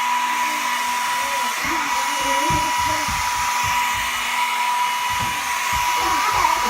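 Handheld hair dryer running steadily: an even rush of blown air with a constant high whine and a lower steady hum.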